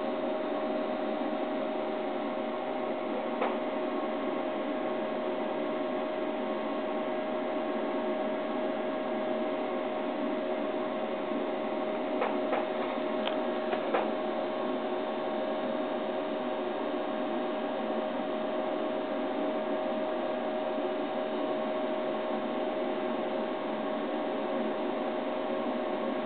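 Steady electrical hum with a constant hiss, and a few light clicks: one a few seconds in and a small cluster around the middle.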